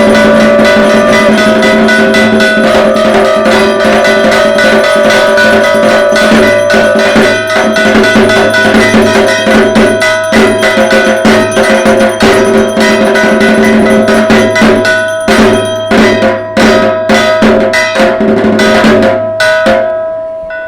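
Dhak, the Bengali barrel drum of Durga Puja, beaten in a fast continuous rhythm, with steady ringing metal tones sounding over it. In the last few seconds the beats grow sparser and the sound fades out.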